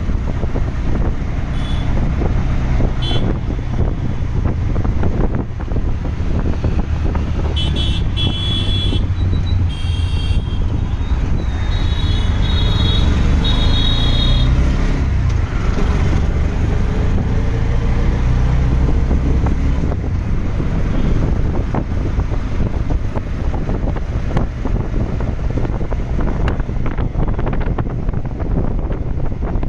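Urban road traffic heard from a moving vehicle: a steady low engine and road rumble with wind on the microphone. Vehicle horns toot several times, in short blasts, in the first half.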